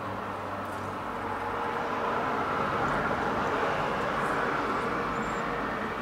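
A road vehicle passing by: a rushing noise that builds to its loudest about halfway through and fades towards the end.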